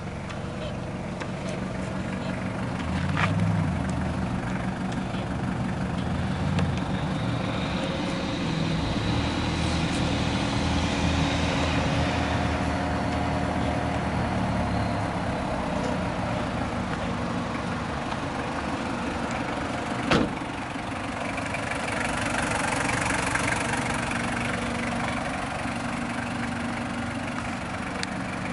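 Toyota 1KZ-TE 3.0-litre four-cylinder turbo diesel idling steadily, with a single sharp knock about twenty seconds in.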